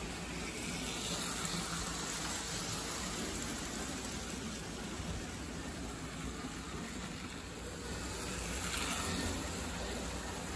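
Lionel O-gauge steam locomotive and freight cars rolling along three-rail tinplate track: a steady whirring and rumbling rush of motor and wheels, which grows louder near the end as the cars pass close by.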